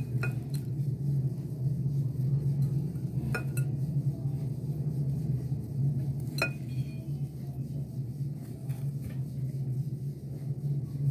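A metal spoon clinking against a stainless steel bowl while scooping potato filling: a couple of sharp clinks at the start, two more about three and a half seconds in, and one past six seconds, over a steady low hum.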